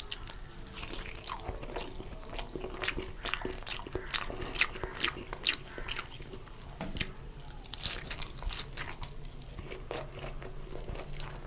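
A man chewing fried egg close to the microphone: a steady run of irregular, short, sharp mouth clicks.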